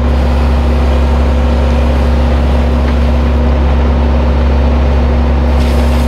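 Skid-steer loader engine running steadily, driving the hydraulic paddles of a concrete mixer attachment churning a wet sand-and-cement batch. A steady low hum with a constant pitch that does not change.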